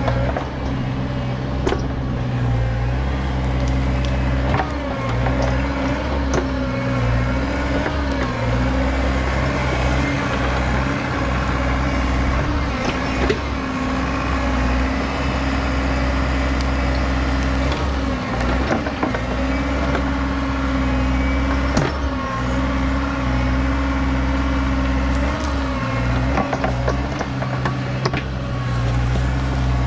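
Bobcat E60 mini excavator's diesel engine running steadily under load, its drone wavering in pitch as the hydraulics work the blade attachment. Scattered sharp snaps and cracks of sticks and brush being pushed and dragged along the ground.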